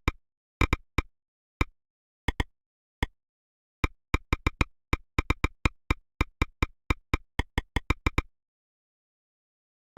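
Android phone ringtone made of short, sharp woodblock-like clicks in an uneven rhythm, cutting off abruptly about eight seconds in.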